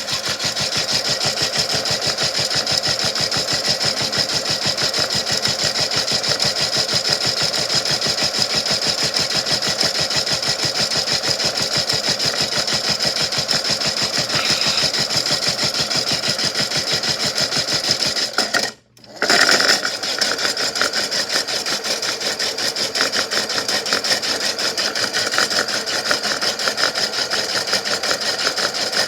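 Small electric motor of a toy washing machine running steadily with a fast, even whir and a high whine. It cuts out for a moment about nineteen seconds in, then runs on.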